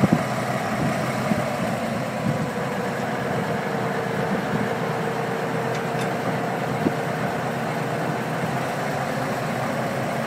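The 1957 Gmeinder four-wheel diesel-hydraulic shunting locomotive's engine runs steadily on test with its exhaust system freshly refitted. A steady whine sounds for several seconds in the middle, with a clunk right at the start and another about seven seconds in.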